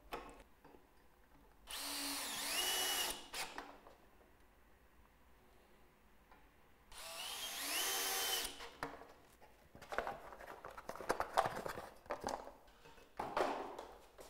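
Cordless drill driver running twice, each time rising in pitch and then holding steady for a second or two as it drives a short screw through a steel bracket into the window frame. Then scattered clicks and rattles as the metal bracket is handled.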